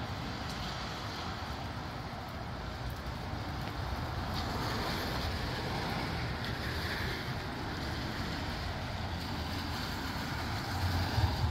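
Steady wind blowing through trees, with gusts buffeting the microphone as a low, uneven rumble. A harder buffet comes near the end.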